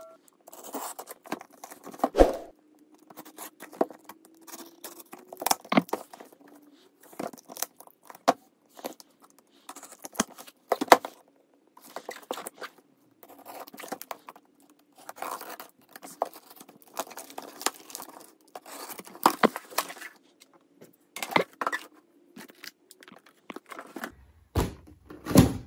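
Packing tape being cut and torn off a cardboard shipping box, with irregular tearing, scraping and crinkling of tape and cardboard. A louder thump near the end.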